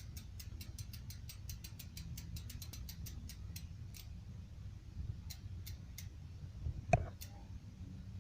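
Koozer HA04N rear bicycle hub (6 pawls, 72 engagement points) freewheeling: a fast, even run of sharp pawl clicks that slows and stops after about four seconds. A few single clicks follow, with one louder knock about seven seconds in.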